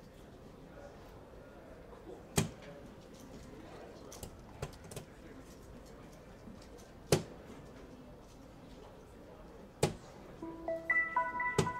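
Soft-tip darts striking an electronic dartboard with sharp clacks, four hits a few seconds apart. Near the end the board plays a short run of electronic beeping tones.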